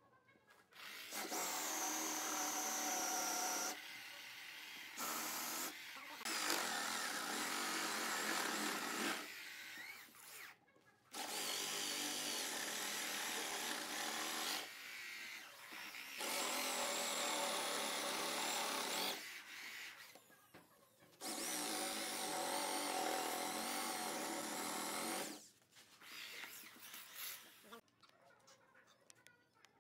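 Cordless drill boring holes into a thick wooden disc, running in spells of one to four seconds with short pauses between, about seven times over, then stopping near the end.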